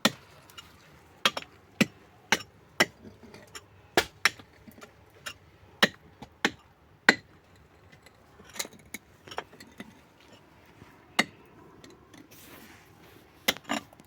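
Hard objects striking one another in sharp, separate knocks and clinks at an uneven pace, about one every half second to second, with a couple of longer pauses.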